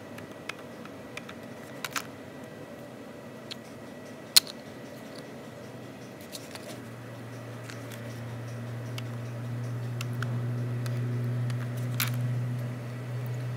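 Handheld battery spot welder firing on nickel strip laid across cylindrical lithium-ion cells: a few sharp snaps, the loudest about four seconds in, among lighter clicks. A low steady hum swells up in the second half.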